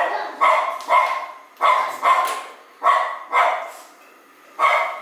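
A dog barking again and again, each bark sharp and quickly fading, with a gap of about a second near the end.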